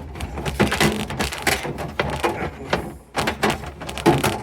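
Irregular knocking and clattering of objects being handled and fitted into a refrigerator, a quick run of knocks with a brief pause about three seconds in.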